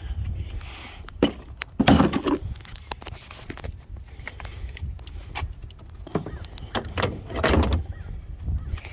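A few dull thumps and rustles over a steady low rumble, the loudest around two seconds in and again near the end.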